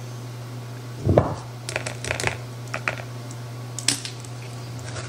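Light clicks, taps and scrapes of a measuring spoon against a glass jar and mixing bowl as heaping tablespoons of cocoa powder are scooped out, with a soft thump about a second in. A steady low hum runs underneath.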